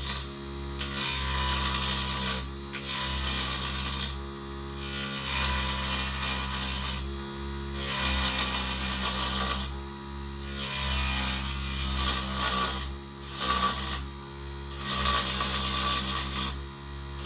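Vevor HS001 mini wood lathe running with a steady motor hum while a hand-held turning tool cuts the spinning wood in a hissing scrape. The cut breaks off briefly about every two to three seconds as the tool is lifted and set back to the work.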